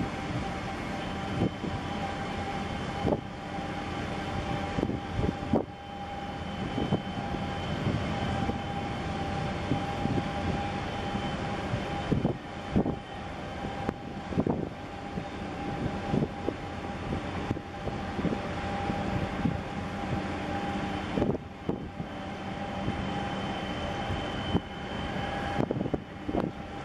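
Steady engine drone with a constant high whine, broken by irregular knocks throughout.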